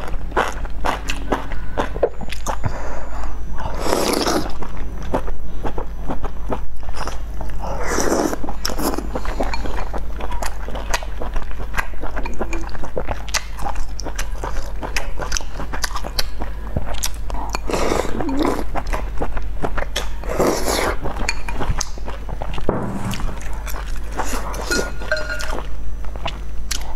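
Close-miked chewing of chewy food: dense small crackling clicks throughout, with a few longer, louder wet slurping sounds, over a steady low hum.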